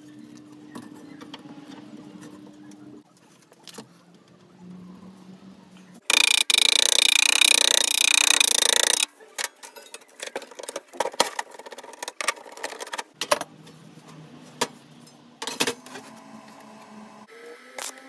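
Steel sheet and square tubing being handled and clamped at a metalworking bench: scattered metal clanks and knocks, with one loud, high, hissing burst of tool noise lasting about three seconds, about six seconds in.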